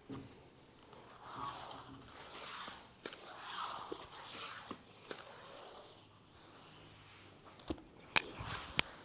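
A person moving through floor work: hands, feet and body brushing and sliding on the floor, with breaths, and a few sharp taps of hands or feet landing near the end.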